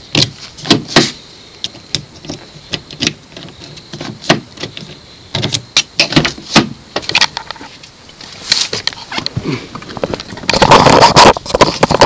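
Sharp, scattered clicks and knocks of a newly cut key and the driver's door lock and handle of a 2006 Hummer H3 being worked, with keys jangling. About ten and a half seconds in comes a louder, longer clatter.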